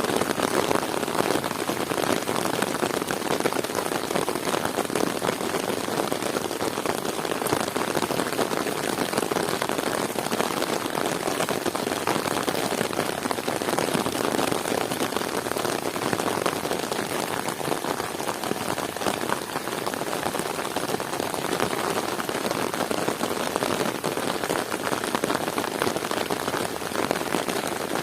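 Heavy rain falling steadily, a dense, even patter of drops striking surfaces.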